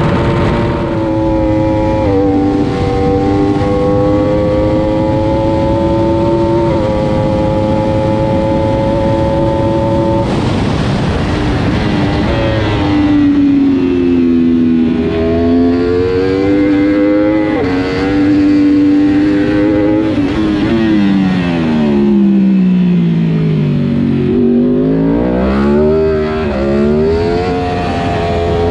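Yamaha R1 factory superbike's crossplane inline-four engine at racing revs, with wind rushing past the onboard camera. The pitch climbs with brief steps at each upshift, falls steeply twice as the bike brakes and shifts down for corners, and climbs again on the throttle near the end.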